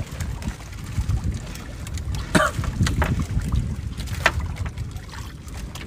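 Wind rumbling on the microphone out on the water, with a few short sharp sounds about two and a half, three and four seconds in.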